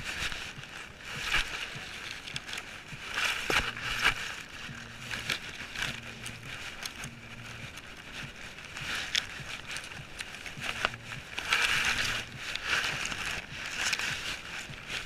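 Grass blades rustling and scraping against the housing of a GoPro strapped to a dog as it noses through long grass, in irregular hissy bursts with a few sharp knocks.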